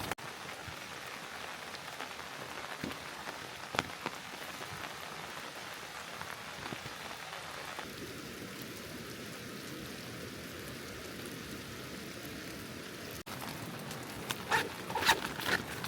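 Steady rain falling on a small tarp shelter and the ground around it, with a few sharp clicks near the end.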